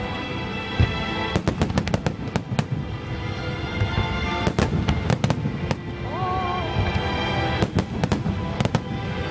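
Aerial fireworks bursting, with many sharp bangs and crackles coming several a second. Music plays with the show underneath.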